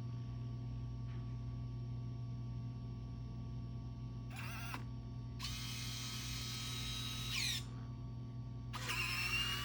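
Roborock Saros Z70 robot vacuum running with a steady low hum. Higher motor whirring starts and stops three times in the second half: briefly about four seconds in, for about two seconds from five and a half seconds, and again near the end, with pitch glides as each stops.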